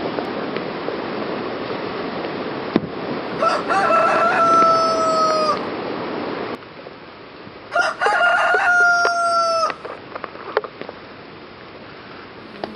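A rooster crowing twice, each crow about two seconds long, over the steady rush of a stream that drops away after the first crow.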